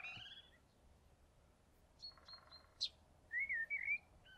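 Songbirds singing in short, separate phrases of chirps and warbled whistles, with pauses between them.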